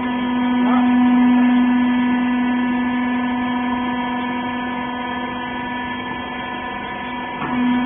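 Hydraulic rag baler's electric motor and pump running with a steady hum. It is louder for the first couple of seconds and swells again near the end.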